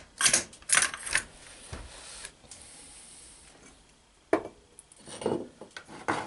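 Metallic clacks, about two a second, from an old Chevy starter motor being worked by hand, its starter drive snapping in and out. Then faint rubbing and a few knocks and clanks as the starter housing is handled on the bench.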